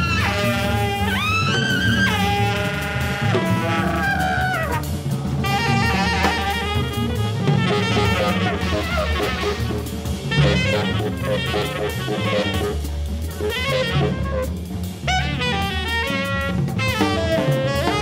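Jazz trio of tenor saxophone, bass and drum kit playing. The tenor saxophone bends notes, then plays quick runs over the bass and busy drums.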